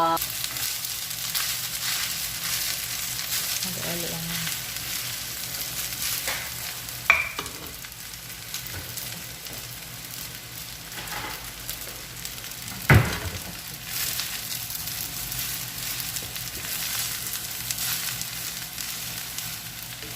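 Rice stir-frying in oil in a pan: a steady sizzle with the scrape of stirring, and two sharp knocks against the pan, about seven and thirteen seconds in.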